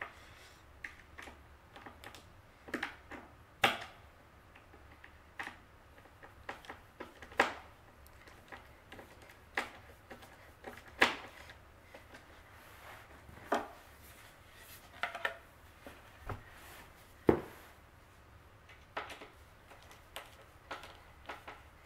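Hand screwdriver driving metal posts into a white flat-pack desk panel: irregular small clicks and taps of the tip and handle as the screwdriver is turned and regripped, with a sharper knock every few seconds.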